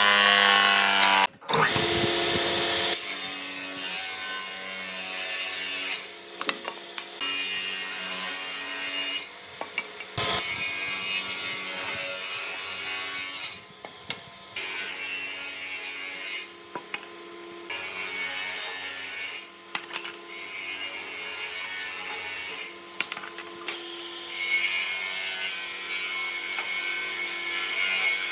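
A power tool working wood: its motor runs steadily while the tool is pressed into the wood in rasping passes of a few seconds each, with short breaks between the passes.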